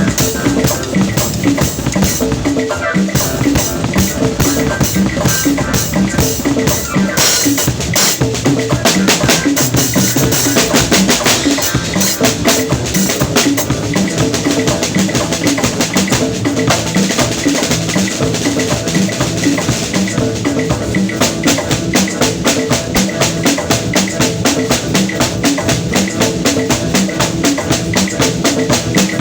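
Drum kit played in a dense, fast pattern of bass drum, snare and rimshot strokes, steady and loud throughout, with pitched notes from other instruments underneath.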